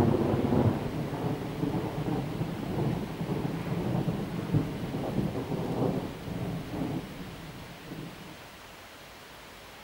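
Thunder rolling, loudest and crackling at first, then rumbling on with a few swells and dying away about eight seconds in, leaving a faint hiss.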